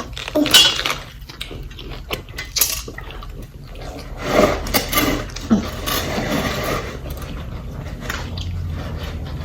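Close-miked eating sounds: chewing and wet lip-smacking on a saucy fried chicken sandwich, a run of short clicks with louder bursts about half a second in and again from about four to six seconds.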